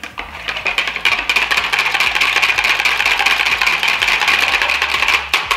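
A wire balloon whisk beating a thin liquid mixture fast in a plastic bowl: a continuous rapid clatter of the metal wires against the bowl. It starts about half a second in and breaks off briefly near the end.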